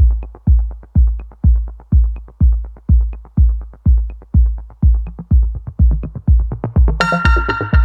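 Electronic dance music: a heavy kick drum on every beat, about two a second, with synthesizer chords coming in near the end.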